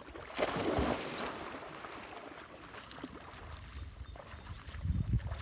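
A person plunging forward into pond water to swim: a loud splash about half a second in, then water splashing and swishing more softly as he swims. A low irregular rumble builds near the end.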